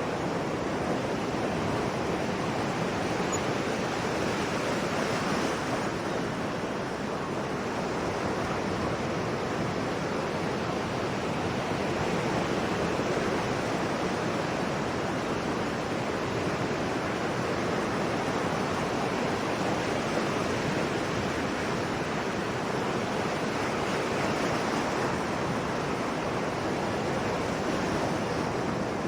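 Sea waves washing onto a shore: a continuous rush of surf with gentle swells in loudness and no single breaking crash standing out.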